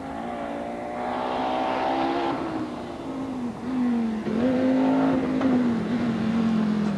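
Audi Quattro A1 rally car's turbocharged five-cylinder engine revving hard as the car approaches at speed. It grows louder, its pitch climbing and then dropping at two gear changes, about two and four seconds in.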